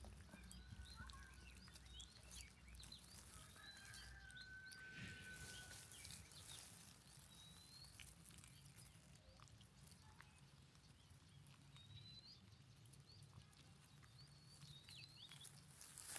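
Faint, scattered high chirps and short squeaks from small animals, including one longer whistle-like note about four seconds in, over a low steady hum.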